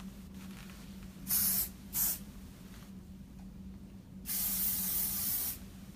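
Aerosol hairspray can spraying: two short hissing bursts, then one longer spray of about a second and a half.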